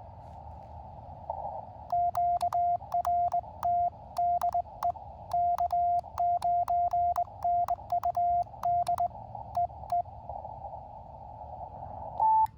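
Morse code sent on an Elecraft KX2 transceiver keyed with KXPD3 paddles used as a cootie (sideswiper): the radio's steady sidetone keys dits and dahs for about eight seconds, with a faint click of the key on each element. Hiss of band noise from the receiver fills the gaps, and a brief higher beep sounds near the end.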